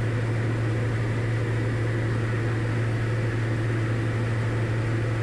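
Diamond DA40 light aircraft's engine and propeller droning steadily in cruise, heard inside the cabin as an even, deep hum with a wash of noise over it.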